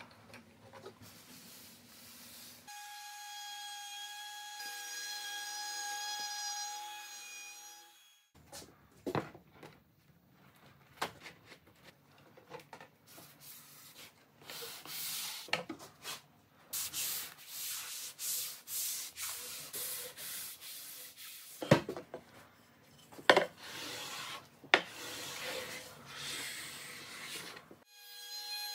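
Wood veneer being rubbed, slid and pressed down by hand onto a plywood carcass: irregular scraping and rubbing with a few sharp knocks. Before that, a few seconds of a power tool's steady whine, like the router used to trim the veneer.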